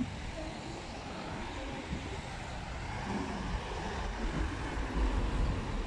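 Road traffic: cars driving past close by, a steady traffic noise with a low rumble that swells about four seconds in.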